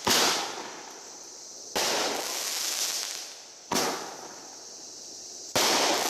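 Small fireworks going off one after another, four in all about two seconds apart: each begins with a sudden pop and trails off in about a second or more of hissing sparks.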